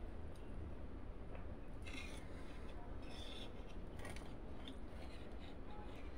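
Close-up eating sounds from a rice meal eaten by hand: fingers mixing rice against a steel plate and chewing, heard as a few short crisp scrapes and squishes over a low steady hum.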